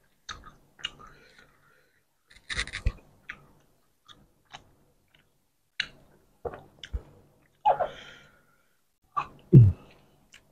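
Chewing and wet mouth sounds of people eating roti canai soaked in curry, heard as scattered short smacks and clicks with quiet gaps between them.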